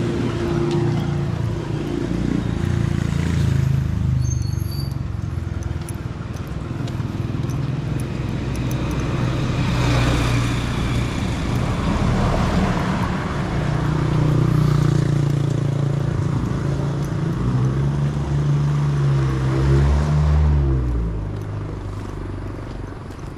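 Road traffic: a run of motor vehicles passing close by one after another, engines swelling and fading, with one changing pitch as it speeds up or slows a few seconds before the end. The traffic dies down near the end.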